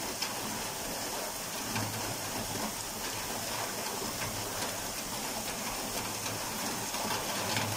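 Steady rain falling on trees and grass: an even hiss with a few sharper drop taps.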